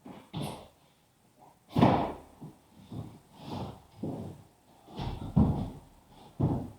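A series of irregular knocks and thuds, about half a dozen, with the heaviest ones a little under two seconds in and around five seconds in.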